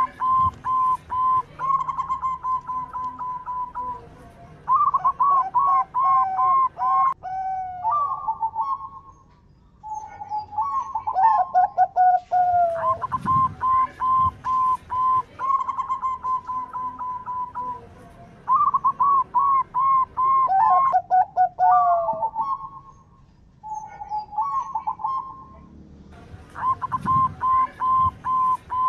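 Zebra dove (perkutut) cooing: bout after bout of quick staccato notes, some phrases dropping in pitch at the end, with short pauses between the bouts.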